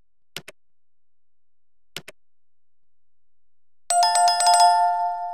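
Subscribe-button animation sound effects: two mouse clicks about a second and a half apart, then near the end a bright notification-bell sound effect that starts suddenly, rings with a rapid flutter and fades away.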